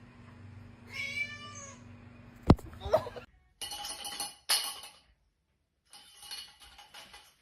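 A house cat meows, a short call about a second in, then a sharp click and a brief second call.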